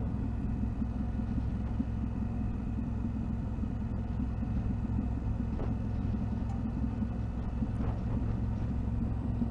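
Yamaha Ténéré 700 motorcycle's parallel-twin engine running steadily as the bike rides along, a low, even drone with no change in pitch.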